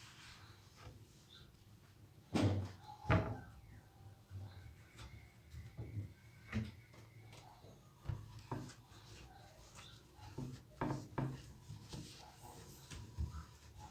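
Kitchen handling sounds: scattered knocks and clicks of things being picked up, moved and set down, with two louder knocks about two and a half and three seconds in.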